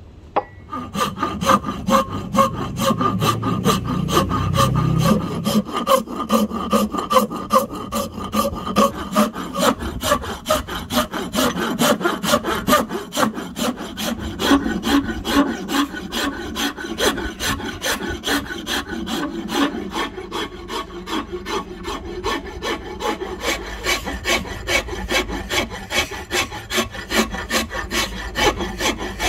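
A steel flat file stroking back and forth across the end of a Siamese rosewood axe-handle blank, shaping the wood in quick, even strokes.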